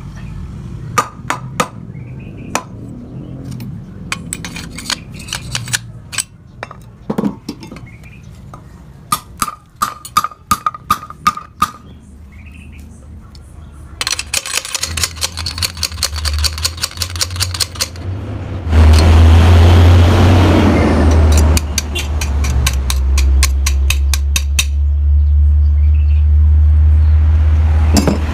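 Irregular sharp metallic taps and clinks, as of hammering on metal. About halfway through, a steady low hum sets in, and a loud noisy stretch of about three seconds follows.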